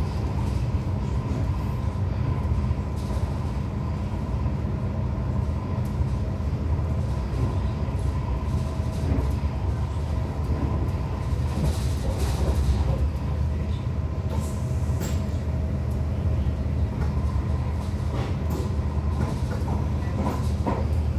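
Steady rumble of a moving passenger vehicle heard from inside the cabin, with a faint whine held at one pitch and a few light rattles and clicks in the second half.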